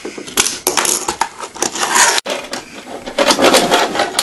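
A fingerboard rolling and clacking on small tabletop ramps and boxes: a quick, irregular run of sharp taps from the deck popping and landing, with the small wheels rolling between them.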